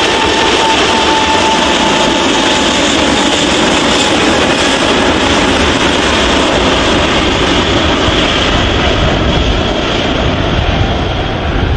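Loud, steady roar of an Airbus A380's four jet engines, with a high whine that fades out about a second in; the hiss thins toward the end as the aircraft moves away.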